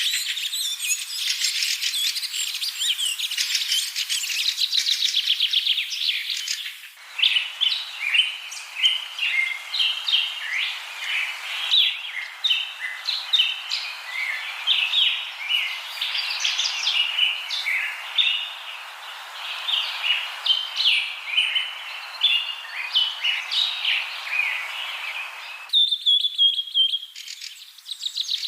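Common myna calls: a dense, fast chatter for the first several seconds, then a long run of varied whistles, clucks and chirps. The sound changes abruptly about seven seconds in and again near the end, where a short steady whistle stands out.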